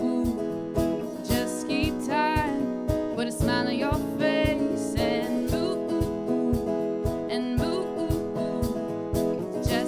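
Live band playing a song: strummed acoustic guitar over a steady drum-kit beat, with a voice singing long, wavering notes.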